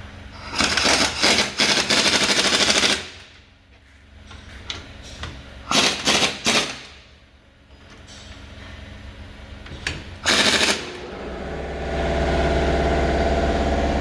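Pneumatic impact wrench hammering in three bursts, a long one about two seconds, a shorter one near the middle and a brief one later, working loose a seized suspension fastener. Near the end a steady low motor hum starts up.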